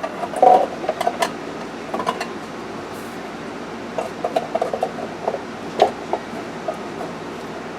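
Light clinks, clacks and rattles of small hard parts being handled, over a steady background hiss.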